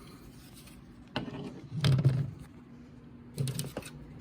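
Handling noise from a Wards 83-7-1666 smoke alarm being turned over and worked at: rubbing and knocks in three short bouts, about a second in, around two seconds, and near the end.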